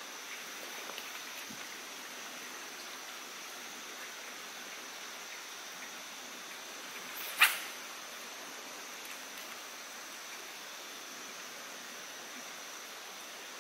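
Steady outdoor background hiss, like faint running water, with a thin steady high-pitched tone over it. One short, sharp sound stands out about seven seconds in.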